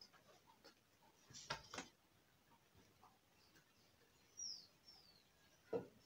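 Near silence with a few light knocks from a mirror and a rope-hung shelf being handled against a wall, the loudest just before the end. About four and a half seconds in come two short, high, falling bird chirps.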